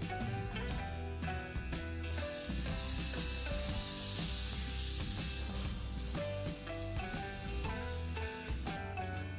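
Hot dogs sizzling as they fry in melted butter in a frying pan. The sizzle gets louder about two seconds in and cuts off suddenly near the end. Background music plays throughout.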